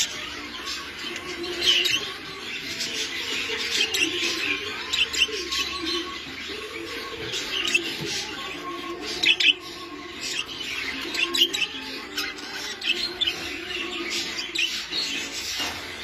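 English budgerigars chirping and chattering, a continuous stream of high chirps with sharper ones standing out every second or two.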